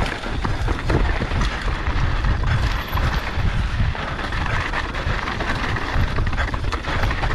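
Wind buffeting the microphone of a camera on an e-mountain bike speeding down rocky dirt singletrack, over the steady rush of tyres on dirt and gravel. Many small knocks and rattles come from the bike as it runs over rocks.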